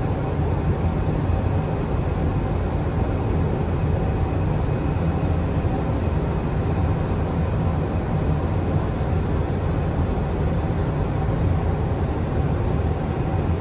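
Steady flight-deck noise of an Airbus A350-900 on approach: an even rush of airflow over a low hum, with a faint steady tone above it.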